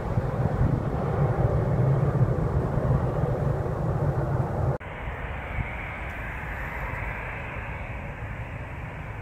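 Jet airliner climbing out after takeoff, its engines a loud, steady low rumble. About five seconds in it cuts abruptly to a quieter, steady hiss of distant jet engines.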